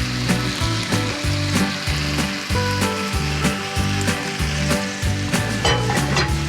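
Shredded cabbage and hot bacon dressing sizzling and crackling in a cast iron skillet, with background music playing under it.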